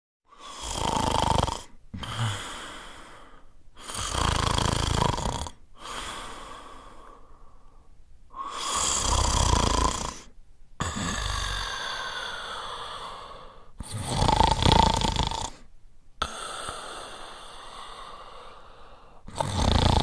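A person snoring: loud rasping snores about every four to five seconds, with quieter breaths between them.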